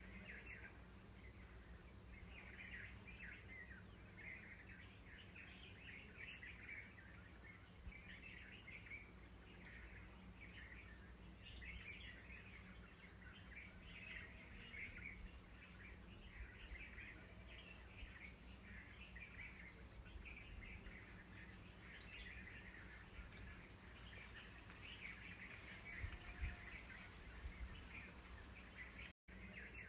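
Faint forest ambience: small birds chirping continuously over a low steady rumble, with a couple of soft knocks near the end.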